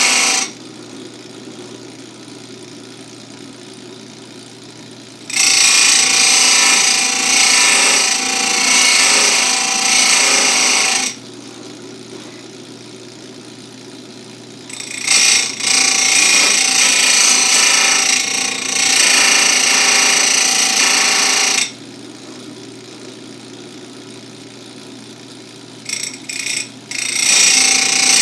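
Electric chain-sharpener grinder working an Oregon 72LGX full-chisel chainsaw chain: the abrasive wheel grinds loudly for about six seconds at a time as it is lowered into each cutter, with quieter stretches between in which the motor runs with a steady hum while the chain is advanced. Near the end come two short touches before the next grind begins.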